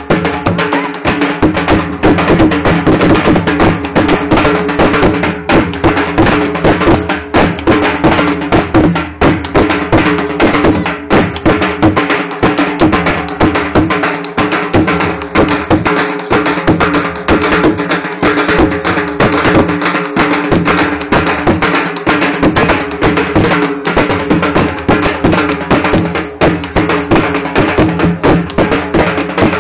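Dhol drumming for a Qalandari dhammal: rapid, continuous strokes in a driving rhythm, with a steady held tone beneath the beats.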